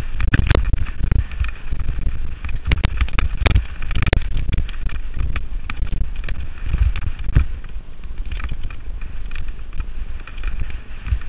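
Wind rumbling on a GoPro microphone with irregular knocks and rattles, the sound of a mountain bike being ridden over rough trail.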